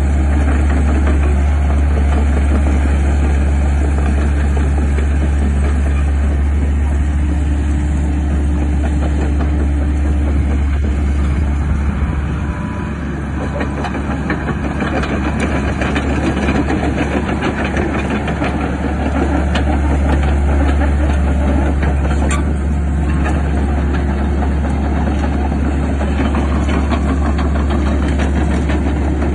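Cat 308C mini excavator's diesel engine running steadily while the machine swings its upper structure and boom from side to side. About twelve seconds in, the low engine hum drops for several seconds, then comes back.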